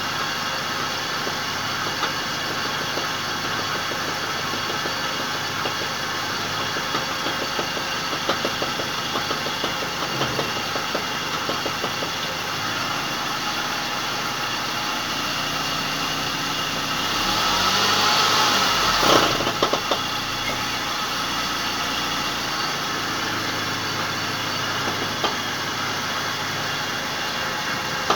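Car engine running steadily with the raised car's wheels spinning freely, with scattered light clicks. About 17 seconds in, the sound swells for a couple of seconds and a few sharp knocks come through. The owner takes the ratchet-like knocking to be a failing right drive shaft.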